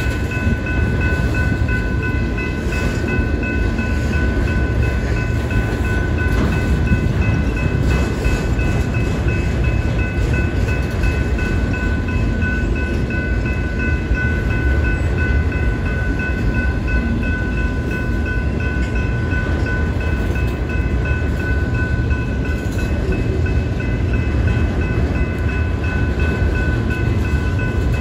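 Freight train of autorack cars rolling past at steady speed: a continuous low rumble of wheels on rail, with a steady high ringing over it throughout.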